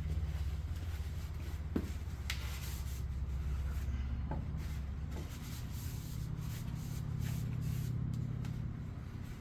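Rubbing and handling noises with a few light clicks over a steady low hum.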